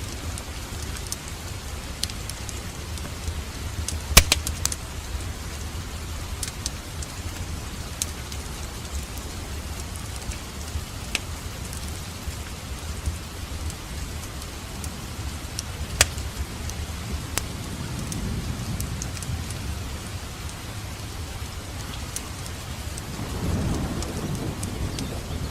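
Wood fire burning in a fireplace: a steady low rumble of flames with scattered crackles and a few sharp pops, the loudest about four seconds in. A deeper swell of flame noise builds near the end.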